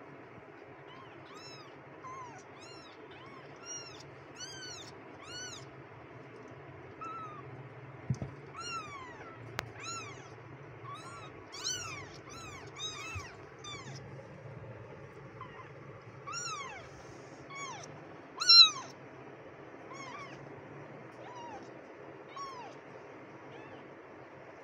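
A litter of very young kittens, eyes just open, mewing: many short, high, thin mews that each rise and fall in pitch, coming singly and in quick runs, with one loud mew about three-quarters of the way through. A steady low hum runs underneath.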